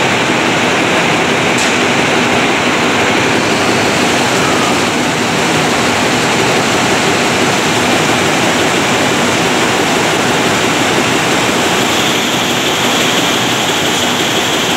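Loud, steady noise of a textile comber running, an even whirring hiss with no clear beat.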